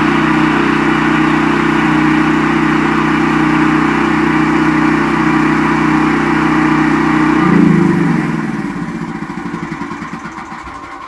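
Westinghouse WGen9500 portable generator's single-cylinder engine running at a steady speed without surging, its idle jet freshly cleaned and bad fuel replaced. About seven and a half seconds in it is shut off and winds down, its firing slowing and fading away.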